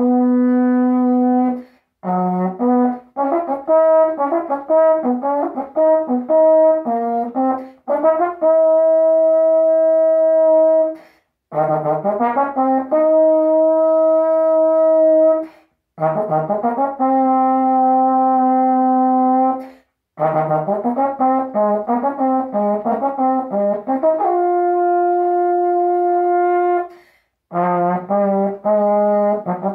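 Solo tenor horn playing an unaccompanied melody: phrases of quick moving notes alternate with long held notes. There are short breaks for breath between phrases.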